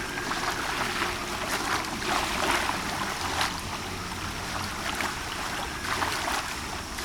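Small waves lapping and splashing at the edge of a bay: a steady wash of water with soft splashes every second or so.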